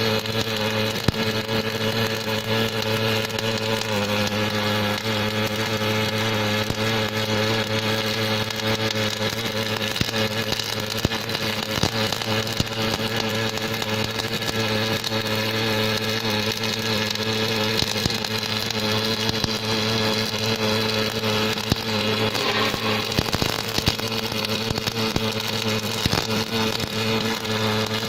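Automatic MIG welding machine running a circumferential seam weld: a steady electrical hum with a continuous crackle of fine clicks.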